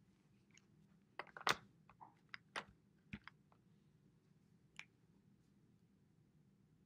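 A quick cluster of sharp plastic clicks and taps, then a single click a moment later: dry-erase markers being handled.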